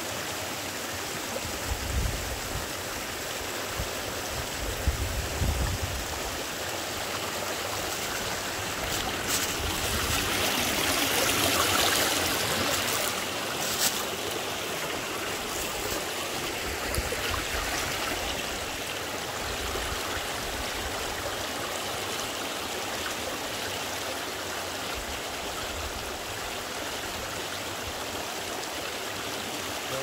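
Shallow mountain stream running over rocks, a steady rush and trickle of water that swells louder for a few seconds midway. A few low bumps sound near the start.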